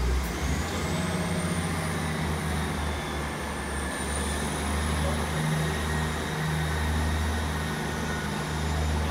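Diesel multiple unit's engines running as the train pulls away: a deep drone that swells and eases every second or so, with a faint high whine that rises in the first second and then holds.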